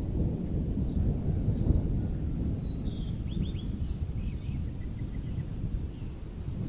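Low, continuous rumble of rolling thunder, with a few faint high chirps about three seconds in.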